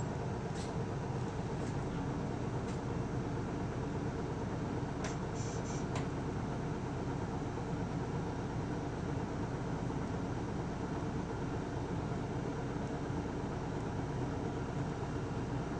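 Isuzu Erga city bus's diesel engine and road noise, running at a steady pitch inside the cabin. A few light clicks or rattles come through in the first few seconds and again around five to six seconds in.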